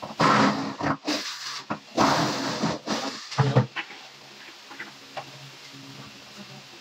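Irregular scraping and rustling bursts with a few sharp knocks from workers handling and fitting melamine cabinet parts, over a faint steady hum.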